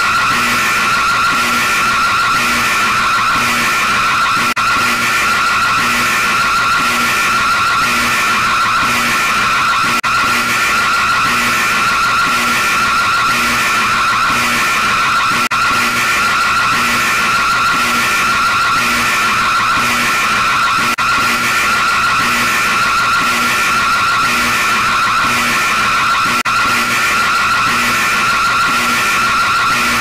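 Emergency alert system (EAS) alarm: a loud, harsh electronic tone held steady, with a regular pulse running through it.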